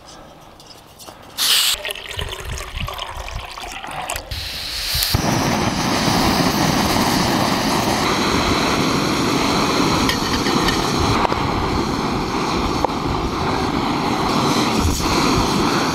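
Gas camp stove burner lit for coffee: a short burst of gas hiss and some handling clicks, then from about five seconds in the burner burns with a steady, loud hiss.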